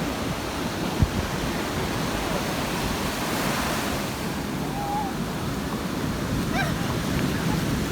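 Ocean surf washing on the shore, a steady rush, with wind buffeting the microphone. A single brief knock about a second in.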